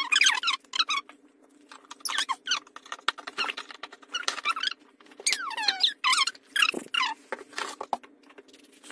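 Runs of short, high-pitched squeaks, many of them gliding down in pitch, with brief pauses between runs.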